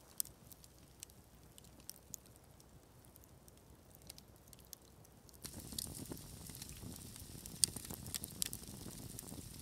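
Campfire crackling with scattered sharp pops; about five and a half seconds in it gets louder and fuller, with more pops.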